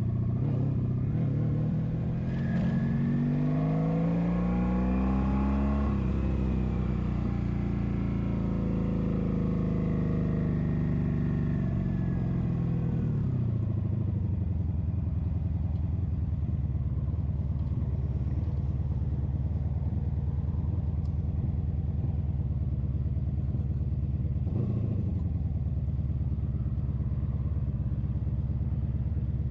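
1983 Honda Sabre's V4 engine under way: its note rises steadily for about six seconds as the bike accelerates, holds, then falls away about twelve seconds in and settles to a steady low run.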